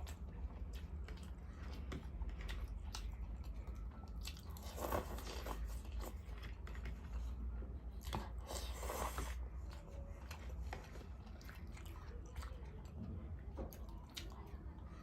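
A person eating close to the microphone: chewing and biting with many small crunches and wet clicks, and two louder, noisier mouthfuls about five seconds and eight to nine seconds in.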